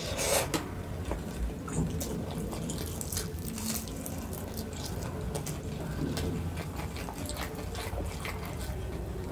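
Close-miked eating sounds: wet chewing with many irregular small clicks and crunches.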